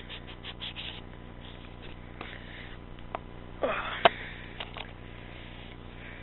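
Handling noises: a quick run of small ticks at first, then soft rustles and a few clicks, the loudest a sharp click about four seconds in.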